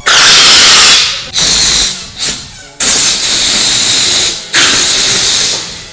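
Compressed air from a shop air hose's blow gun hissing loudly into a balloon to inflate it, in four long bursts with short pauses and a brief puff between them.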